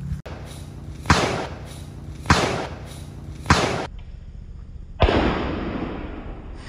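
Four sharp outdoor bangs, the first three evenly spaced about a second and a quarter apart and the fourth after a short gap. Each bang has a short echoing tail.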